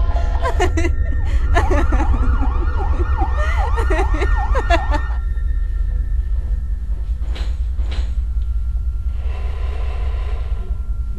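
A siren wailing in quick rising-and-falling sweeps, about two a second, over a steady low rumble. The sweeps stop about halfway through. Two sharp knocks follow, then a short burst of noise near the end.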